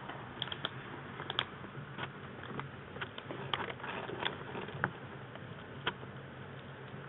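Maine Coon kitten eating dry kibble from a stainless steel bowl: irregular small crunches and clicks, thickest in the first five seconds, over a steady low background hum.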